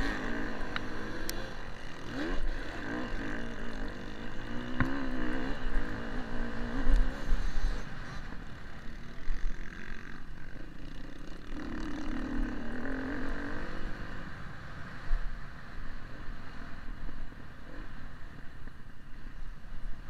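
Motocross dirt bike engine heard from an onboard camera, revving up and falling back repeatedly as the rider works through the track, with wind rumbling on the microphone and a few sharp knocks from the bumps.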